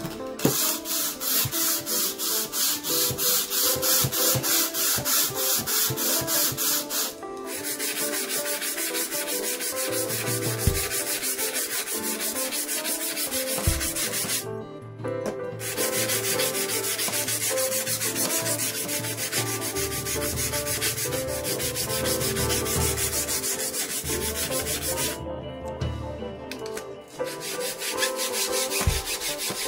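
Cast-iron base and sides of a Stanley No. 4 hand plane rubbed back and forth on abrasive paper on a flat sheet, cleaning up the sole and sides: a rasping scrape in quick, even strokes, with a brief pause about halfway and another short one near the end.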